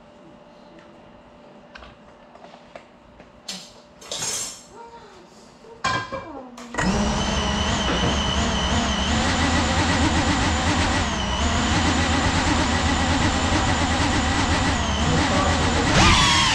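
A few faint clicks and knocks, then about seven seconds in the brushless motors and ducted propellers of a GEPRC CineLog 35 cinewhoop start suddenly and run at a steady idle whine with a hiss, heard from the camera on the drone itself.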